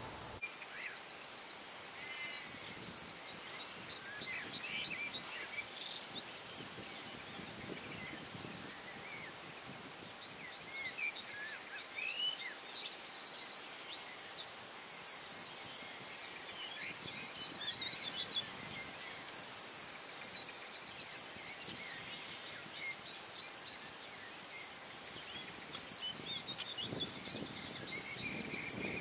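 Yellowhammer singing twice, about ten seconds apart: each song is a quick run of repeated high notes ending in a longer note. Fainter calls of other small birds come in between over a steady hiss, and a low rumble builds near the end.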